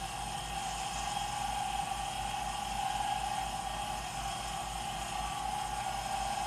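Smithy 1220 LTD combination lathe-mill running steadily in milling mode, its 3/16-inch end mill cutting into a metal plate while the table is fed along. The machine's motor and spindle give an even, unchanging tone.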